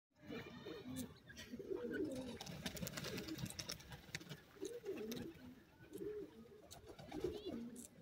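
Grey francolins (teetar) giving soft, low, wavering coo-like calls, roughly one a second, with scattered sharp clicks.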